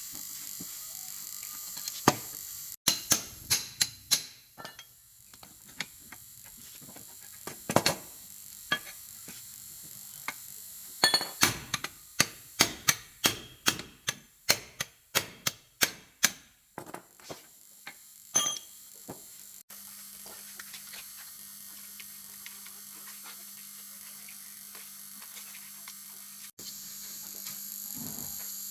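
Metal being struck with a hammer in two runs of quick, ringing blows, about two or three a second, with a steady low hum behind.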